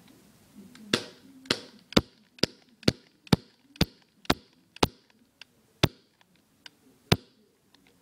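Air Mag C11 CO2 airsoft pistol firing a string of about eleven sharp shots, each with a short hiss of gas. They come about two a second at first and slow to a few spaced shots near the end.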